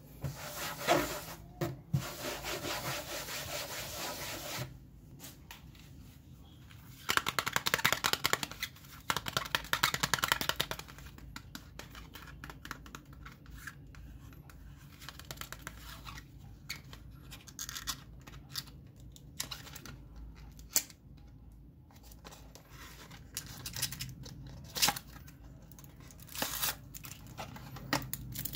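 Hands unpacking a small cardboard box: packaging rustling and tearing in two louder stretches near the start, then scattered light scrapes, taps and crinkles as the box end is opened and a plastic-sleeved booklet is slid out.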